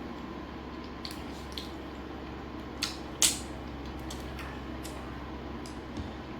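A person eating chicken, chewing with a few short sharp crunches or mouth clicks; the loudest comes a little past halfway. A steady low hum runs underneath.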